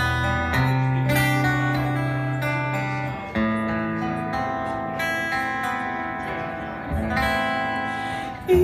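A live band plays an instrumental passage: an acoustic guitar strums chords over sustained low notes. The chords change about every three seconds.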